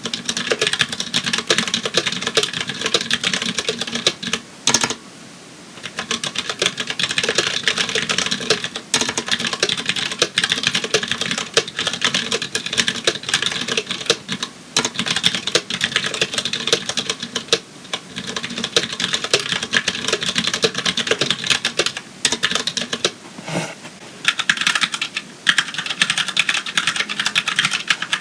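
Continuous fast typing on a Tex Yoda mechanical keyboard with Cherry MX Clear switches, which are tactile rather than clicky. The typing stops briefly about five seconds in and again near the end.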